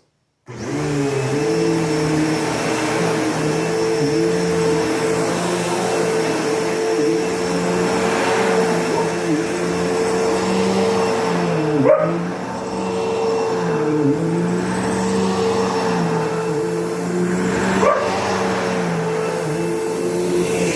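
Upright vacuum cleaner switched on about half a second in and running steadily, its motor whine dipping in pitch now and then as the load changes, with a short knock about twelve seconds in and again near the end.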